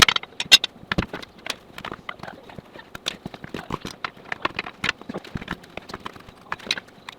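Tire spoons knocking and clinking against a steel wheel rim while prying a backhoe tire's bead over the rim: irregular sharp knocks, several a second.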